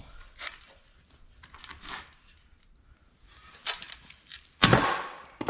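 Light scraping and handling noises, then a sharp metal bang with a short ring about four and a half seconds in, followed by a smaller knock.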